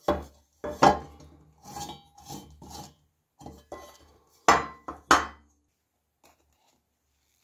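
Loose metal parts of an antique caviar dish being handled: the bowl and its engraved rim clinking and scraping against each other, with two louder knocks about two-thirds of the way in.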